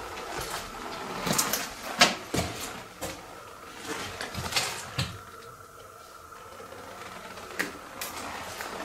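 Irregular footsteps, scuffs and knocks on a debris-strewn floor, with the loudest knock about two seconds in. It grows quieter in the second half, with a single knock near the end.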